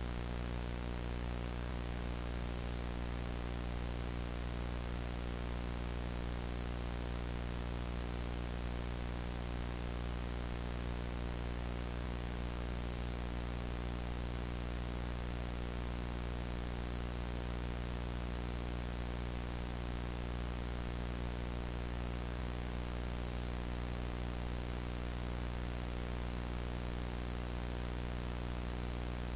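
VHS tape static: a steady, unchanging analog hiss with a low hum underneath.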